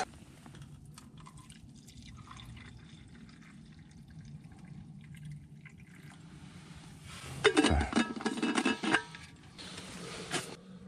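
Hot cocoa being poured, with dripping liquid and quiet handling at first, then a loud stretch of clattering and pouring about seven and a half seconds in and a short clatter near the end.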